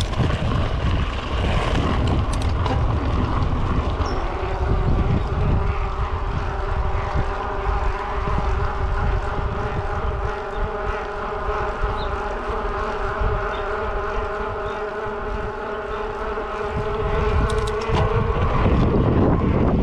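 Mountain bike ride with wind rumble on the microphone. A steady buzzing whine comes in about four seconds in and stops near the end.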